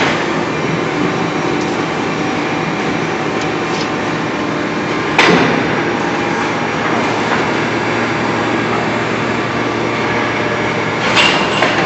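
Forging machine working a red-hot workpiece: steady loud machinery noise, broken by two sharp metal clanks, one about five seconds in and one near the end.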